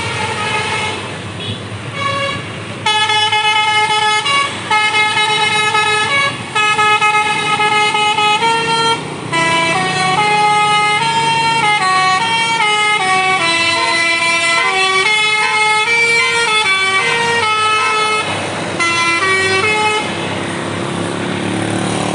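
Bus basuri telolet horn playing a melody: a run of loud multi-trumpet air-horn notes stepping up and down in pitch, some held and some quick. The tune stops near the end, leaving engine noise.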